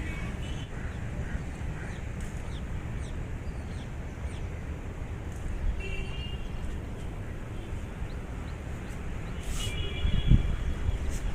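Steady low background rumble, like wind or distant traffic, with a few short high-pitched calls just after the start, about six seconds in and about ten seconds in. There is a dull knock about ten seconds in.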